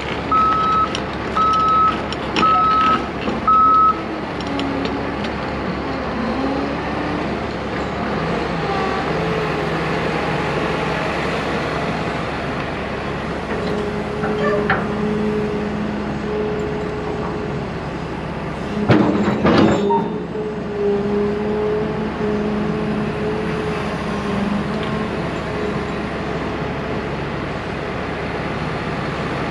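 John Deere 75G excavator's travel alarm beeping about five times in the first few seconds, then its diesel engine running steadily with a held hum. A sudden loud burst of noise comes about two-thirds of the way through.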